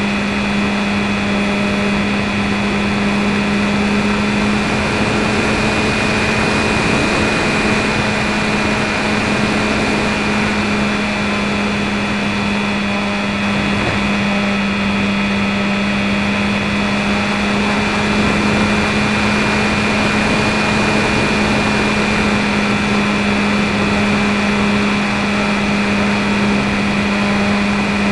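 Electric RC plane's E-flite 450 brushless motor (860kv) and 10x5 propeller running at a steady throttle: an even drone that does not change pitch, over a steady hiss of air.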